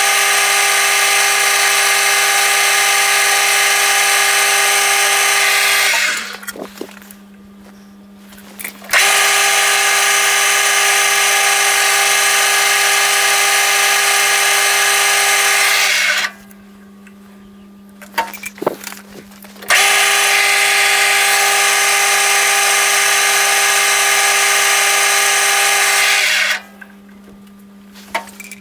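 Metal lathe cutting a spinning workpiece held in a three-jaw chuck. There are three loud cutting passes of several seconds each, each with a steady pitched whine. Between them are quieter gaps where a low hum goes on and a few clicks sound.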